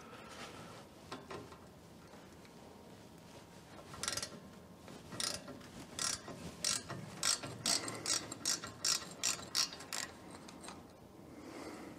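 Hand ratchet wrench clicking through repeated short back-and-forth strokes, about three a second, from about four seconds in until about ten seconds in.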